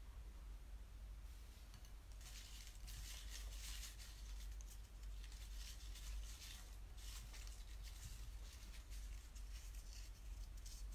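Faint rustling and scraping in a run of short bursts over a low steady hum. The rustling fades out after about seven seconds.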